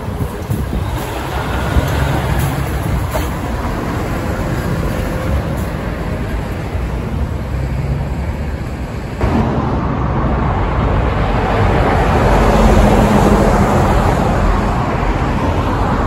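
Road traffic with heavy trucks' diesel engines running as they pass, among lighter cars. The sound jumps abruptly louder about nine seconds in.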